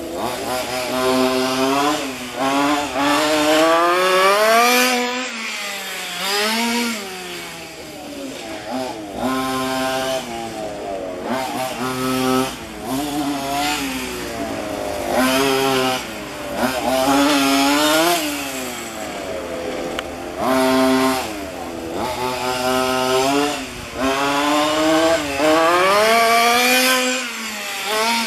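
Two-stroke petrol engine of a 1:5-scale FG radio-controlled car revving up and down over and over as the car accelerates and slows around the track, its pitch climbing and dropping every couple of seconds.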